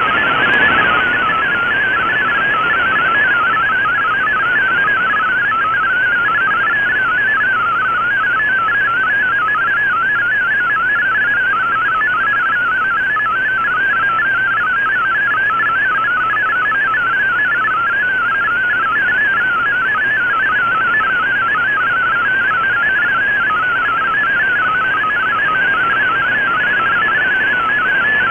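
MFSK32 digital text signal on the 7780 kHz shortwave broadcast, received on an Icom IC-R8600: a rapid, continuous warble of tones hopping around one pitch over steady static hiss.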